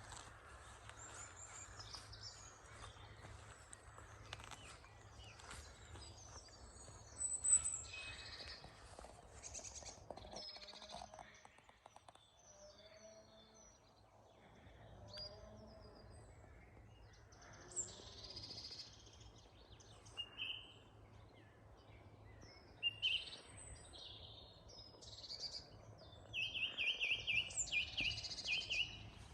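Several woodland birds singing and calling together in morning song, many short high chirps and phrases overlapping, with a few lower, softer notes in the middle. Near the end one bird gives a loud, rapid run of repeated notes.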